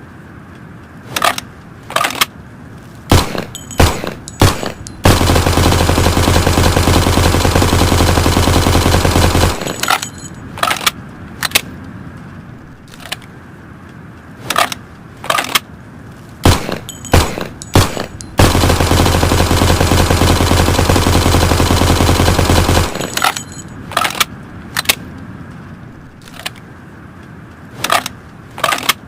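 Thompson submachine gun firing: scattered single shots and short bursts, and two long bursts of automatic fire lasting about four seconds each, one about a sixth of the way in and one about two thirds through.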